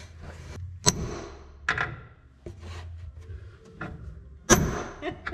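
Two sharp metallic knocks, about a second in and near the end, each with a brief high ring, with lighter clicks and taps between them: hand tools at work on the car's floor panel fitting.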